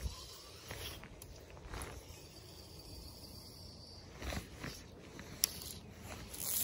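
Quiet outdoor ambience with a few soft rustles and scrapes from an angler handling a fly rod and line, and one sharp click about five and a half seconds in.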